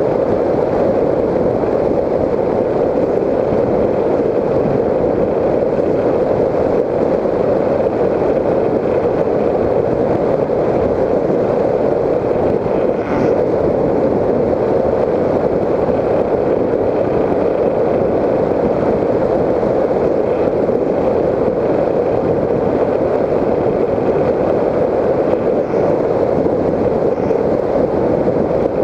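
Steady in-flight noise of a Raptor 1600 FPV model airplane, heard through the GoPro Hero 3 mounted on the plane: an even, muffled noise of airflow and the plane's electric drive, with no change in pitch or level.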